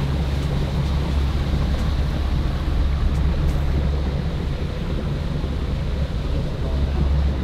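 Yamaha 70 hp outboard motor running steadily as a skiff moves under way, with water rushing along the hull and spraying from the wake.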